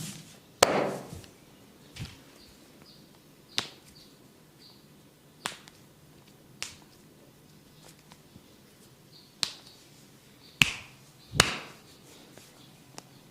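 A barber's hands slapping and tapping in a head and neck massage: about eight sharp strikes at irregular intervals, the loudest about half a second in and two close together near the end.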